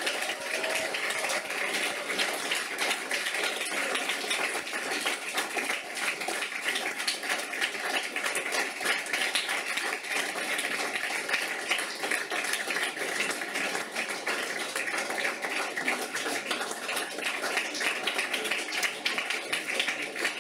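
Audience applauding steadily: a continuous patter of many hands clapping.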